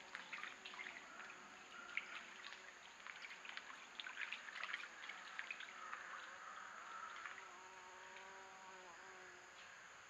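Faint light splashing of white-tailed deer stepping through a shallow creek, with scattered small ticks and splashes in the first half. An insect buzzes close to the microphone for about three seconds in the second half.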